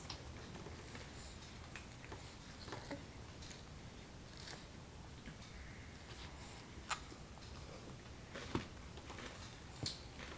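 A baby gnawing and mouthing a piece of watermelon rind, making scattered short clicks and smacks over a faint low room hum.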